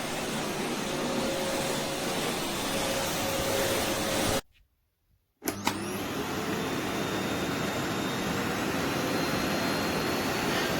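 Eureka WhirlWind bagless canister vacuum cleaner running with a steady rushing noise. The sound drops out for about a second near the middle, then comes back with a faint whine that rises slowly.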